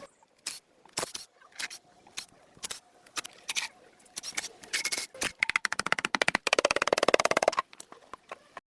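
Workshop tool work: separate sharp knocks every half second or so, then a fast rattle of evenly spaced impacts lasting about two seconds, which is the loudest part, then a few last knocks.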